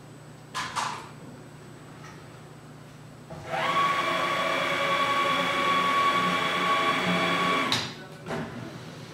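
Cobot's linear rail axis drive running as it carries the robot arm along its floor track: a steady whine with several tones at constant pitch that starts abruptly about three seconds in and cuts off sharply near the end. Short clicks come shortly before and after.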